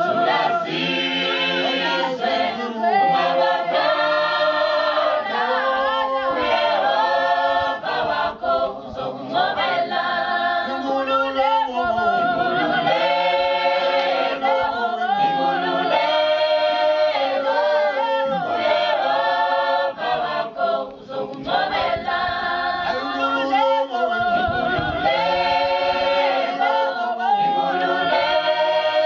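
Mixed choir of men and women singing a Swazi traditional song a cappella in harmony, in repeated phrases of a few seconds each.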